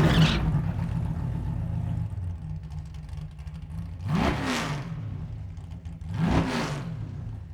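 A car engine running at a low, steady idle. Two short swells come about two seconds apart, each rising and then falling in pitch. A louder engine sound fades out right at the start.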